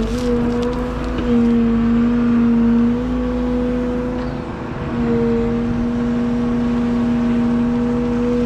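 Liebherr A913 Compact wheeled excavator's diesel engine and hydraulics running steadily under working load, with a strong steady drone over a low rumble that shifts slightly in pitch a few times as the hydraulics take up load.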